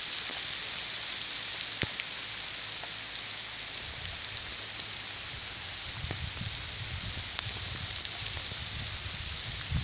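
Steady rain falling: an even hiss with scattered sharp drip ticks. A low, uneven rumble joins in from about four seconds in.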